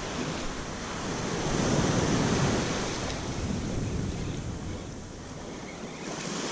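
Ocean surf washing up a sandy beach: a wave breaks and swells to its loudest about two seconds in, then fades as it draws back.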